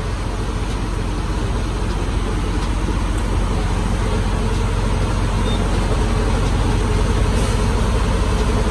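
Steady low rumble of idling diesel semi-truck engines, with an even engine hum and no break.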